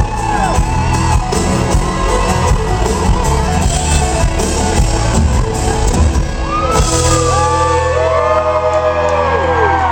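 Live band playing loud in a reverberant hall, with steady drum hits until about seven seconds in, then a held closing chord ringing out under shouts and whoops from the crowd.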